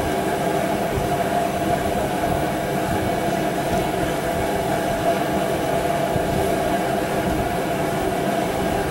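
A steady mechanical hum and rumble with a held middle tone, like a machine running without pause in the background.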